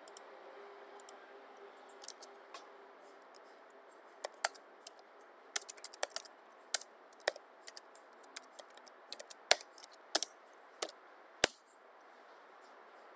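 Computer keyboard typing: irregular key clicks that come thickest through the middle, with one heavier key press near the end.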